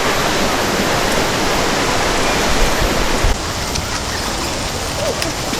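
River water rushing steadily as a dense hiss. About three seconds in it abruptly becomes somewhat quieter, and a few light clicks follow.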